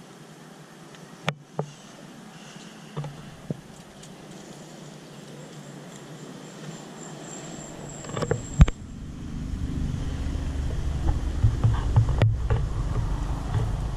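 Sharp handling knocks and clicks, a loud cluster of them about eight seconds in, followed by a low rumble of wind buffeting the microphone that grows louder over the last few seconds.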